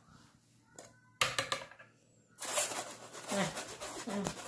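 A wire whisk clinks once against a metal mesh sieve about a second in, with a short ring. Then it scrapes steadily, rubbing crepe batter through the sieve's mesh.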